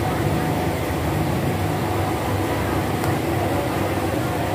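Steady street-market background noise: a constant low rumble of nearby road traffic and general hubbub.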